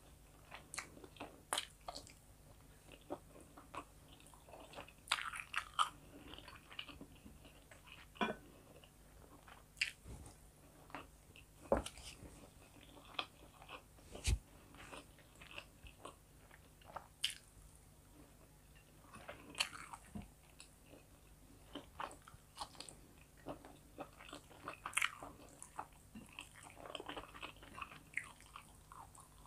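Close-miked chewing and mouth sounds of a person eating rice, chicken fillet and sautéed mushrooms by hand, with irregular sharp clicks and smacks.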